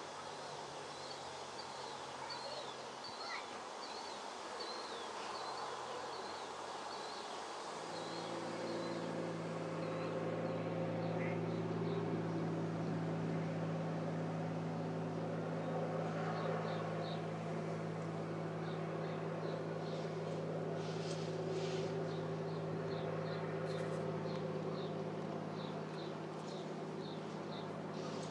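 Small single-engine floatplane's engine droning steadily at a distance, getting louder about eight seconds in as it makes its run across the water. A small bird chirps in short repeated series over it.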